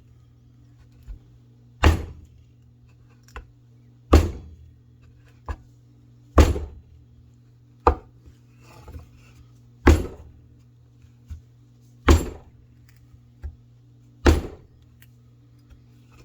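A SOG Aegis FL folding knife with an 8Cr13MoV blade stabbed hard into wood again and again: six heavy thuds about two seconds apart. Each thud is followed by a lighter knock as the blade is worked free.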